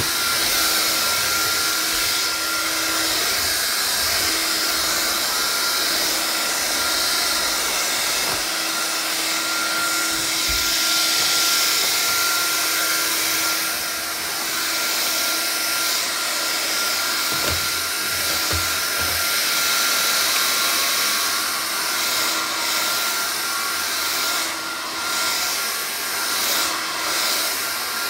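Vax Air Cordless upright vacuum cleaner running steadily: a continuous rush of suction with a steady high motor whine and a lower hum. A few low knocks come about two-thirds of the way in, and the sound wavers near the end as the vacuum is moved.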